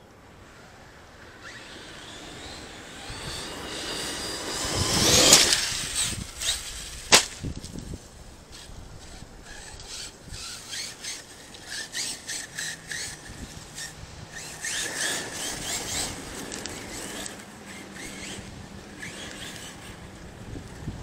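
Arrma Kraton 6S RC truck's brushless motor whining, rising in pitch as it speeds up and comes close, loudest about five seconds in. A single sharp knock follows about seven seconds in, then a run of short clicks and rattles as the truck drives on.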